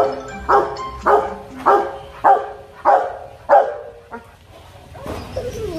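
A dog barking repeatedly, about seven barks at roughly two a second, each bark falling in pitch. The barking stops about four seconds in.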